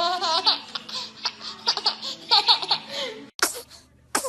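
A baby laughing in quick, pulsing giggles, cut off suddenly about three seconds in, followed by two short sharp bursts near the end.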